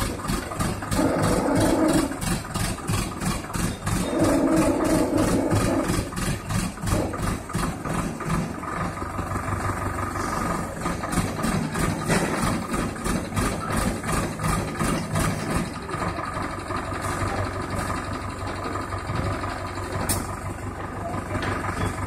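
Diesel engine of an ACE 14XW pick & carry crane running steadily. Its sound swells twice, about a second in and again about four seconds in, each time for a second or so.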